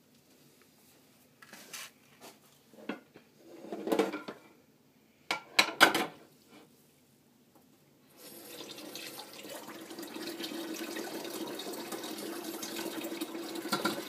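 A few scattered sharp clicks and knocks, the loudest about six seconds in, then steady running water sets in about eight seconds in.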